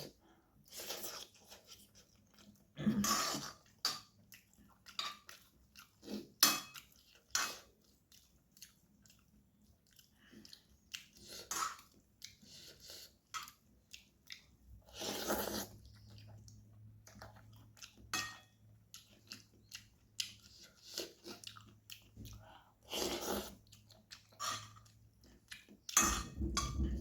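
A person eating spicy noodles: irregular chewing with wet smacks and clicks, and a couple of longer, louder sounds about fifteen and twenty-three seconds in. A low rumbling noise comes in near the end.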